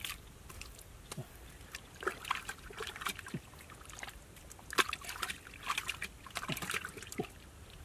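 Wet mud and water squelching and sloshing as a hand digs and gropes inside a mud hole, in irregular clusters of short wet sounds.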